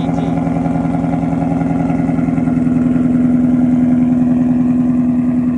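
2018 Ford Mustang GT's 5.0 L V8 idling steadily through catless long-tube headers, an X-pipe and an AWE Touring catback exhaust, with a deep, even exhaust pulse.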